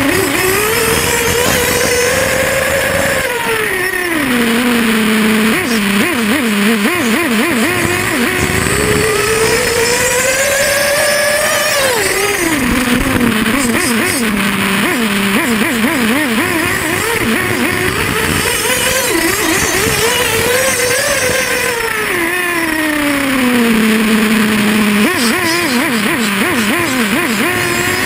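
Radio-controlled Arctic Cat model snowmobile's motor whining as it is throttled up and back off several times: the pitch climbs, falls away, sits low for a few seconds, then climbs again.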